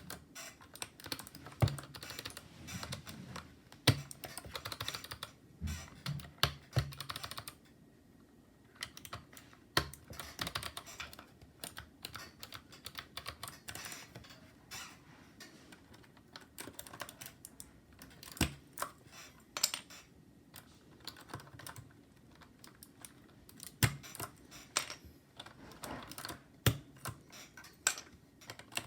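Typing on a mechanical keyboard: irregular runs of sharp key clicks, with a short pause about eight seconds in.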